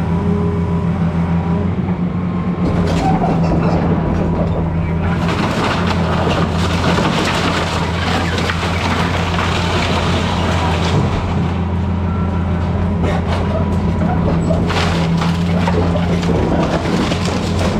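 A 200-class excavator's diesel engine running steadily, with cracking and crunching of breaking timber and building debris starting about two and a half seconds in.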